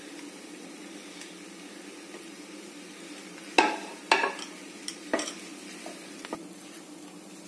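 A spatula stirring bread cubes in a nonstick frying pan, knocking against the pan about six times in quick succession near the middle, over a faint sizzle of the bread warming in a little hot oil.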